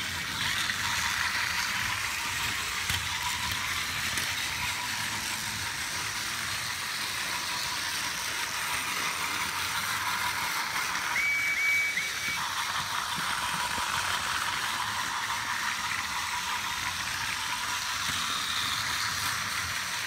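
Battery-powered TOMY Trackmaster toy engine running on plastic track: a steady high motor-and-gear whir. About 11 seconds in, a brief run of high beeps.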